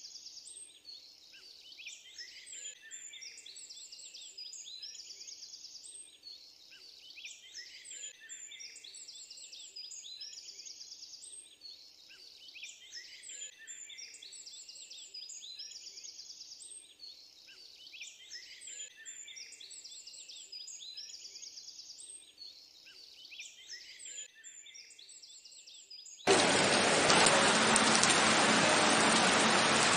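Birds chirping and trilling in repeated phrases; near the end a heavy rain downpour cuts in suddenly, far louder than the birdsong.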